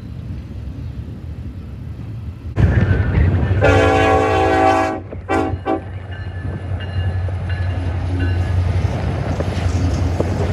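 Freight train rumbling past. Then, after an abrupt jump in level, a Norfolk Southern diesel locomotive's multi-chime air horn sounds one long blast of about a second and a half, followed by two short toots, over the steady rumble of the locomotives' engines as they approach and pass.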